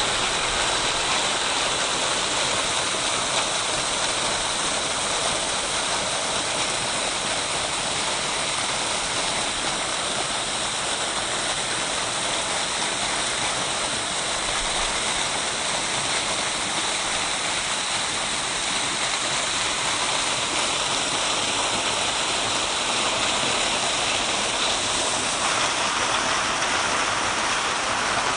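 Running water rushing steadily, with no beat or tone in it; its tone shifts slightly near the end.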